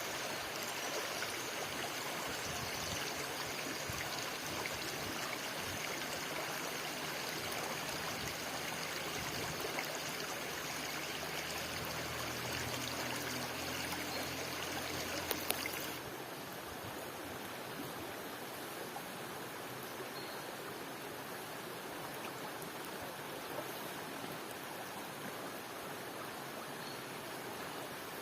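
Flowing stream water, a steady even rush. About halfway through it turns slightly quieter and duller.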